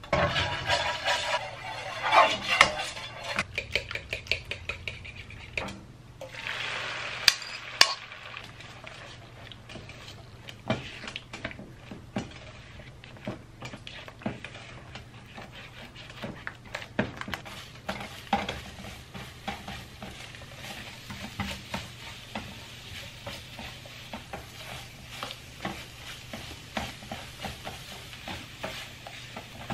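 Beaten eggs frying in hot olive oil in a non-stick frying pan, sizzling while a silicone spatula stirs and scrapes them around the pan. The sizzle is loudest in the first few seconds and again around seven seconds in, then settles under a run of short scrapes and taps.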